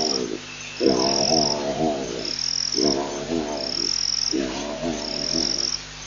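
A series of drawn-out animal calls, each about a second long with a wavering pitch, repeating about every two seconds. A high, thin trill comes in short repeated bursts behind them.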